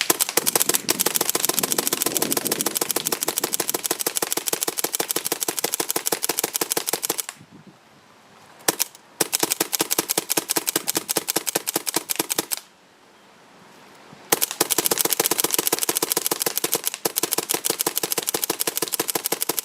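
Paintball marker firing in rapid full-auto strings: a long string of about seven seconds, a single shot, a shorter string of about three seconds, then another of about five seconds.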